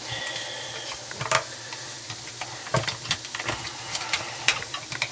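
Plastic dishwasher filter parts clicking and knocking as they are handled and pushed back into the sump. There are about a dozen separate sharp clicks over a faint steady hiss.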